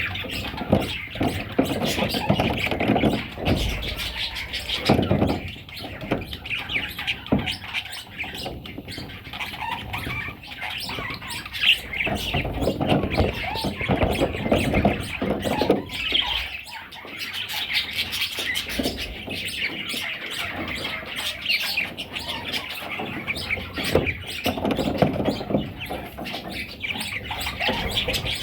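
Budgerigars chirping and chattering without a break, mixed with bursts of low rustling and thumps.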